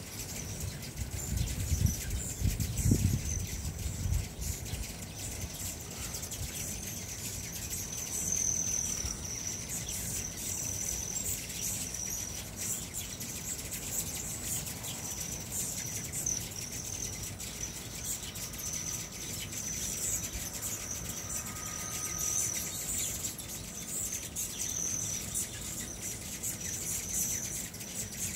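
A crowd of hummingbirds swarming at feeders: a steady high twittering made of many quick chirps. A low rumble is heard from about one to four seconds in.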